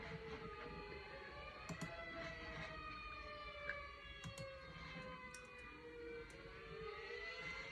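Several outdoor warning sirens (Vortex, Modulator, P-50, ATI and 500-SHTT types) sound together, faint. Their overlapping tones slowly rise and fall out of step with one another, with scattered short clicks.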